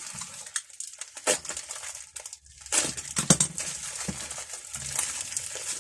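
Parcel packaging being crumpled and pulled open by hand: irregular rustling and crinkling with sharp crackles, loudest a little past the middle.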